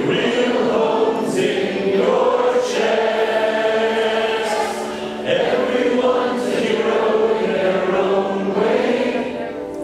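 Several voices singing together over backing music, a musical-theatre ensemble number sung in long held phrases.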